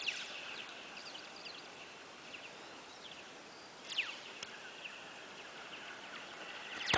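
Taut vineyard trellis wire being struck, giving off laser-like "pew" sounds: short falling zips, a clear one about four seconds in and a louder one at the very end.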